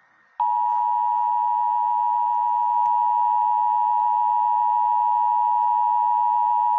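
Emergency Alert System attention tone: a steady, unbroken alert tone that starts about half a second in. It signals that a weather warning broadcast is about to be read.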